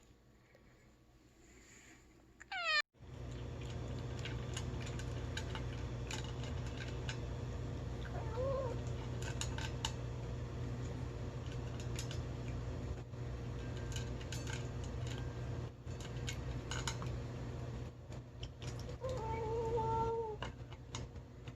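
Cat eating from a dish, with many short chewing and dish clicks, and making short murmuring vocalizations as he eats: a brief one about eight seconds in and a longer one near the end. A steady low hum runs underneath.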